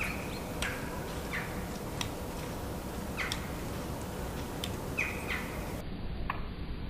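Small songbirds at a feeder giving short chirps, about half a dozen at irregular intervals, with a few sharp clicks among them, over a steady background hiss.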